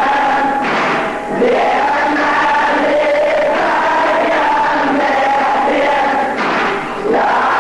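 Many voices chanting the refrain of a Shia mourning elegy (latmiya) together in long, held sung lines, with short breaks about a second in and near the end.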